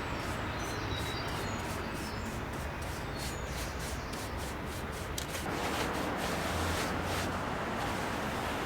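Paintbrush brushing paint onto wooden cabin boards: a steady rubbing sound with faint light ticks.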